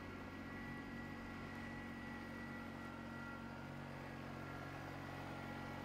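Case IH compact tractor's diesel engine running steadily as the tractor drives, a faint even hum with a thin steady high whine above it.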